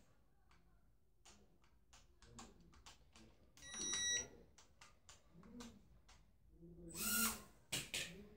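Toy mini drone's hand controller: faint scattered clicks and one short electronic beep about four seconds in.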